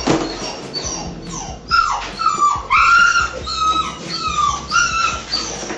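An angry domestic cat yowling in a run of drawn-out, wavering calls as it resists being netted out of its carrier. A sharp knock comes right at the start.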